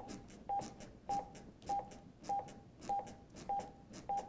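AED trainer's CPR metronome prompt: a short beep repeating evenly, a little under twice a second (about 100 a minute), pacing chest compressions. Faint clicks of compressions on a CPR manikin come in between.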